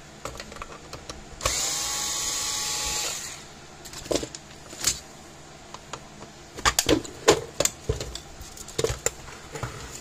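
Small electric screwdriver whirring for about a second and a half as it backs a screw out of a plastic fence-charger case, the motor's pitch rising as it spins up and dropping as it stops. This is followed by a run of sharp plastic clicks and knocks as the case is handled and the lid is lifted off.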